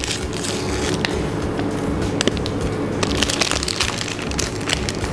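Paper cooking sleeve being torn open and crinkled in gloved hands as the marinated prawns are pulled out: a dense, continuous run of crackling and crunching.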